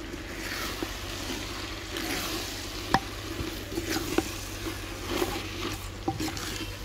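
Fresh fenugreek leaves being stirred with a wooden spatula in a clay pot, sizzling and rustling in the hot fried masala, with a few sharp knocks of the spatula against the pot, the loudest about three seconds in.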